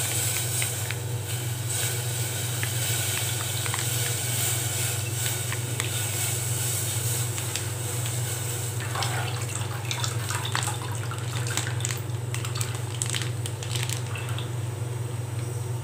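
Milk poured in a steady stream from a plastic milk packet into a stainless-steel pot, with a few crinkles of the packet as it is squeezed empty near the end, over a steady low hum.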